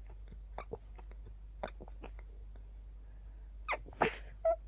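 A person's stifled sneezes: small, quick catches of breath, then near the end a louder, sharp sneeze followed at once by a short second one. These are suppressed sneezes in an itchy, rapid-fire sneezing fit.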